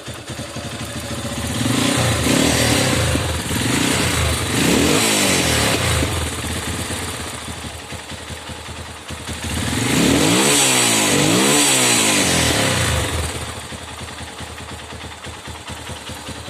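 Zongshen ZS200 motorcycle's 200 cc single-cylinder four-stroke engine idling and revved up twice, each time falling back to a steady idle. It now picks up revs and holds idle once the intake air leak behind its unstable running was fixed.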